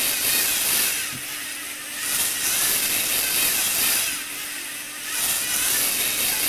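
Lego Mindstorms NXT motor and Technic gear train of a scissor lift whirring as it drives the lift. The motor runs in three stretches of about two seconds, with softer dips between them, over a steady faint hum.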